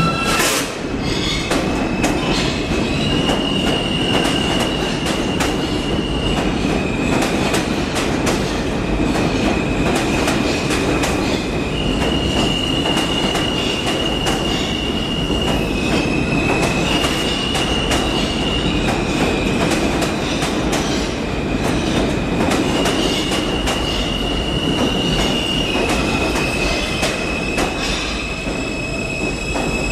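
R160 E train rolling into the subway station: a steady low rumble with frequent clicks of wheels over rail joints. Over it runs a high-pitched whine that switches back and forth between two close pitches every few seconds.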